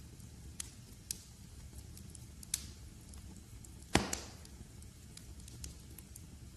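Wood fire crackling in a fireplace: a low steady rumble with scattered small snaps, and one loud pop about four seconds in.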